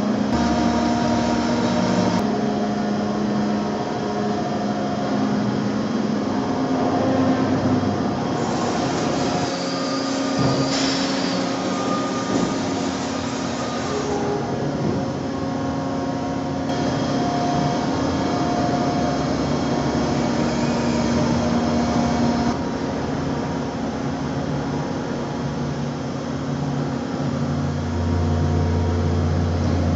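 Dörries Scharmann CNC floor-type boring and milling machine running under power: a steady hum and whine from its drives, the pitch stepping several times as it moves, with a deeper hum coming in near the end.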